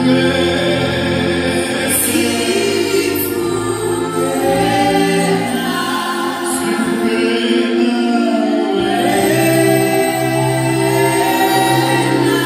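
A group of voices singing a gospel chorus together in harmony, holding long sung notes.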